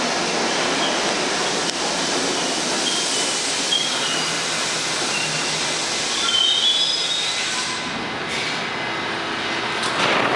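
R68 subway train braking into an underground station: steady wheel and rail rumble with short high squeals from the wheels and brakes. The noise drops away as the train stops about eight seconds in. A short burst comes near the end, as the doors open.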